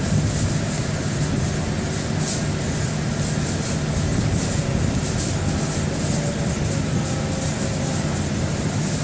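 Diesel machinery running steadily with a low drone: a Volvo EW160B wheeled excavator and an orange potato loading machine at work, with a continuous rattling hiss of starch potatoes moving through the loader.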